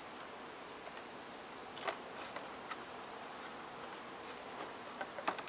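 A few light knocks and clicks as small cosmetic bottles and packaging are handled and set down on a wooden table, over a steady faint background hiss.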